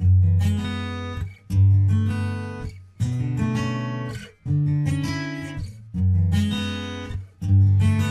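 Background music: acoustic guitar strumming chords, one chord about every second and a half, each ringing and fading before the next.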